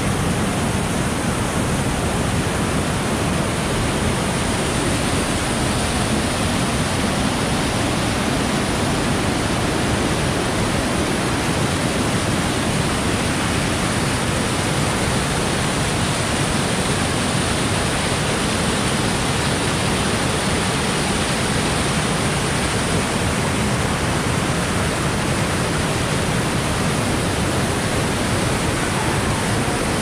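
Whitewater cascades of a mountain creek rushing over mossy boulders: a steady, unbroken roar of falling water.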